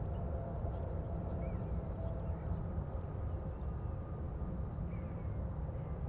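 Jet aircraft engines rumbling steadily in the distance, with a faint steady whine over the low rumble. Small birds chirp briefly a few times.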